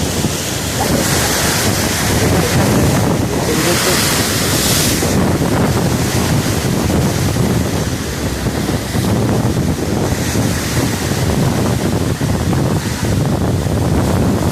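Sea surf washing in, with heavy wind buffeting the microphone; a louder rushing swell about four seconds in.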